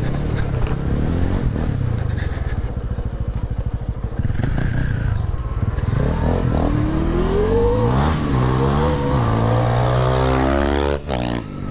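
Bomb Moto B2 72-volt electric dirt bike ridden on a trail: the motor's whine climbs in pitch as the throttle opens, then rises and falls with the throttle over a low running rumble. It drops off briefly near the end.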